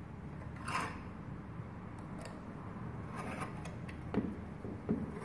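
Scrapes and clicks from hands adjusting a laboratory variable resistor, one scrape about a second in and another past three seconds, then two short knocks near the end, over a low steady hum.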